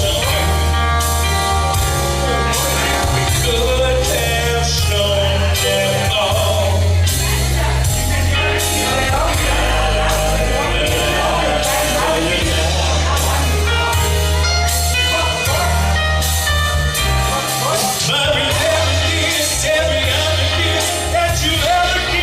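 A live band playing rock-country music with a lead vocal, a steady drum beat and a heavy bass line, heard in a large room.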